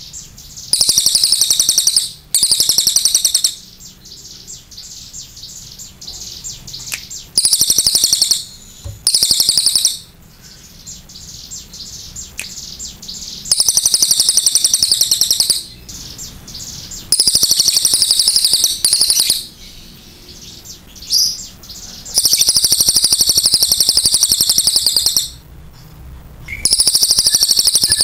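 Crested jay (cililin) giving long, rapid rattling calls, high and clear, in about seven bursts of one to three seconds each with short pauses between.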